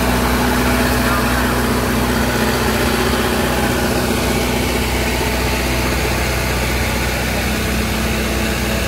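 Engine of a vintage motor grader running steadily at low speed as it drives past, easing off a little after about six seconds.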